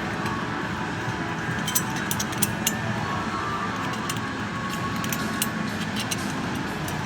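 Sharp metallic clicks and clinks come in small clusters over a steady background noise: screws and an iron cover board being handled and fitted.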